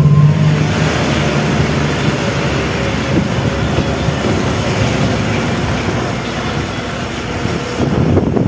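Truck on the move, a steady rumble of engine and road noise with a rushing haze over it.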